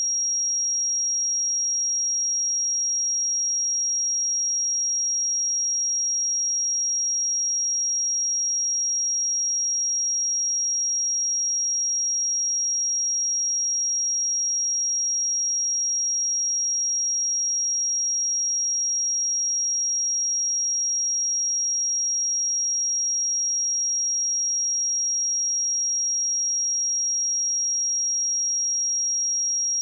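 A pure 5633 Hz sine-wave test tone held at one steady pitch and level, a single high, thin whistle-like tone with no other sound.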